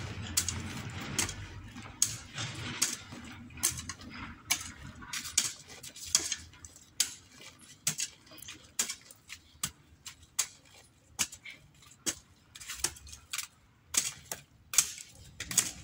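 A metal garden hoe chopping into stony soil, a sharp scraping strike about every three quarters of a second in a steady working rhythm.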